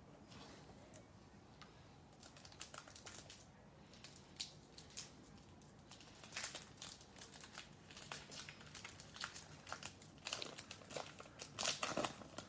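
Shiny wrapper of an NBA Hoops trading-card pack crinkling and tearing as it is opened by hand: a string of sharp crackles that starts about two seconds in, gets busier, and is loudest near the end as the wrapper is pulled apart.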